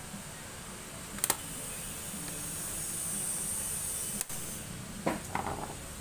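Plastic bottom cover of a laptop being pressed back onto the case, its clips snapping into place: a sharp click about a second in and a quick run of clicks near the end, over a steady hiss.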